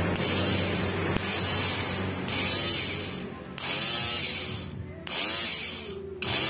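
Reassembled starter motor of a three-wheeled cargo motorcycle bench-tested straight off a battery: it whirs up in short bursts about five times, each burst starting suddenly and winding down in a falling whine. It spins freely, a sign that the armature once judged burnt out still works.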